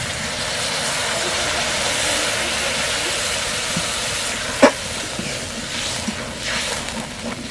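Water poured into a hot metal wok of fried onions, capsicum and sauces, hissing and sizzling as it hits the hot pan and slowly dying down. A single sharp knock comes about halfway through.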